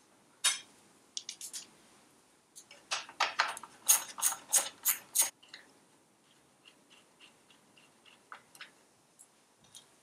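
Hand tools clicking and clinking against metal parts of a bare engine on a workbench: a few single clicks, then a quick run of about a dozen sharp clicks a few seconds in, followed by fainter scattered ticks.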